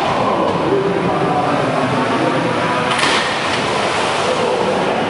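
Steady loud din of a crowded hall, with one sharp knock about three seconds in.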